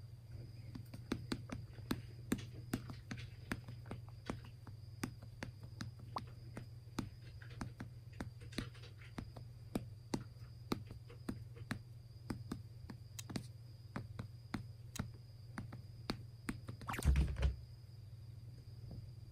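Fingers patting a belly through a sweatshirt like a little drum: many short, irregular taps, a few a second, over a steady low hum, with one louder thump near the end.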